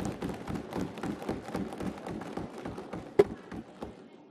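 Many hands thumping on wooden assembly desks in approval: a fast, uneven patter of thuds, with one sharper, louder knock about three seconds in, dying away near the end.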